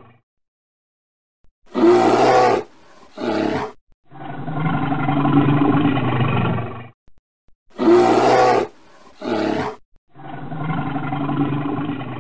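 Dubbed animal roars and growls on a loop: two short roars, then a long, low, steady growl, and the same sequence again about six seconds later, each part starting and stopping abruptly.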